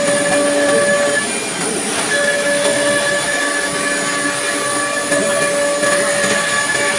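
CNC nesting router machining particle board: a steady spindle whine over the noisy hiss of the cut. The whine drops out for about a second shortly after the start, then comes back.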